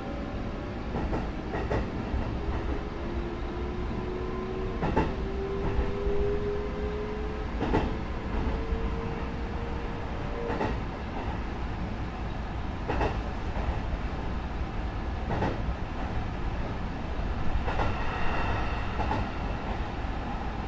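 Sanyo Electric Railway 6000 series electric train running, heard from the driver's cab, with wheels clicking over rail joints at irregular intervals. A motor whine rises slowly in pitch for the first ten seconds or so, then stops.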